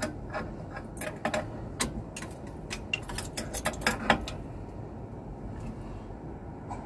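Light metallic clicks and clinks of hands and a tool working on the fittings at the head of an aircraft crew oxygen cylinder, quick and irregular for about four seconds, then stopping.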